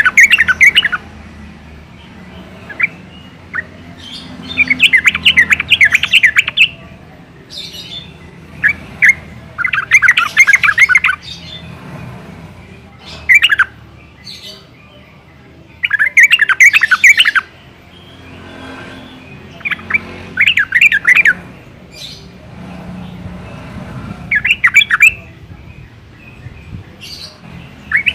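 Yellow-vented bulbul singing: short bubbly bursts of rapid chattering notes, each phrase lasting one to two seconds and repeating every three to four seconds, with a few single call notes in between.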